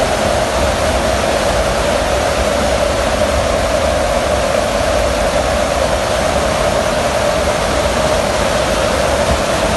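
Steady roar of rushing air and engine drone in the hold of a military transport aircraft flying with its rear cargo ramp open, with a constant hum running through it.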